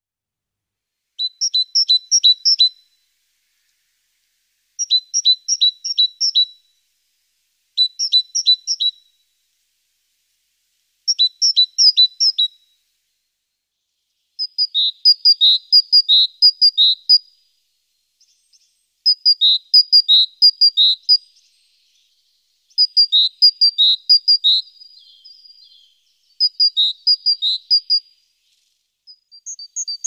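Great tit singing: about eight short phrases of a high note alternating quickly with a lower one, each lasting a second or two, with brief pauses between them.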